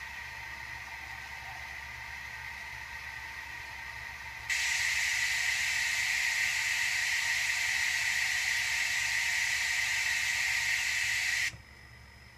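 Steam hiss from the Tsunami DCC sound decoder of an Sn3 brass K-27 model steam locomotive, played through its small onboard speaker. A quieter steady hiss jumps to a much louder hiss about four and a half seconds in, which cuts off suddenly about eleven and a half seconds in.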